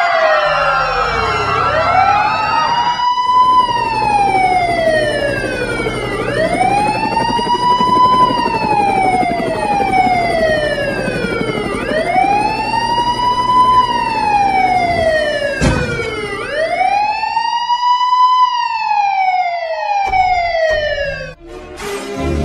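Police siren in a slow wail, its pitch rising and falling in long sweeps about every five and a half seconds, four times over, before cutting off near the end. A second siren overlaps briefly at the start, and a single sharp click sounds about two-thirds of the way through.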